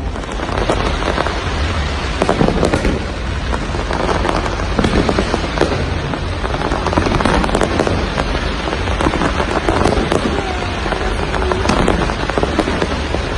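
Fireworks crackling: a dense, rapid crackle of many small sharp pops, steady throughout, over a low rumble.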